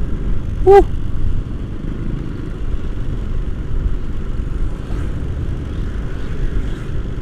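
Motorcycle on the move in traffic: a steady low rumble of engine and road noise. About a second in there is one short, loud tonal beep.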